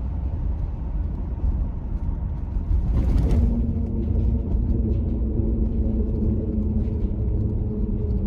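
Road rumble of a car heard from inside the cabin; about three seconds in there is a brief loud rush as the tyres run onto a metal bridge deck, after which the tyres give a steady pitched hum on the metal.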